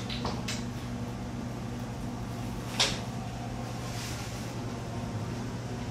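Steady low mechanical hum, with a few light clicks near the start and one sharp click about three seconds in.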